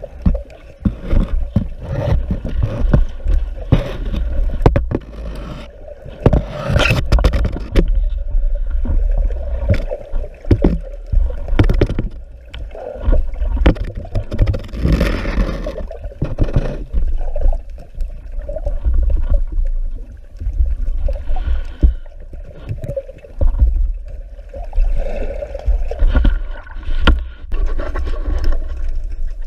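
Water sloshing and gurgling with many irregular knocks, clicks and scrapes, over a constant deep rumble.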